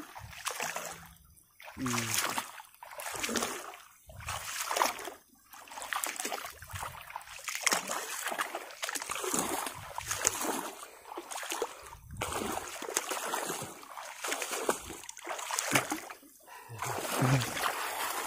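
Wading through shallow flood water while a fishing net is hauled up out of it hand over hand. There are repeated splashes, roughly one a second, and water sloshing and dripping off the net.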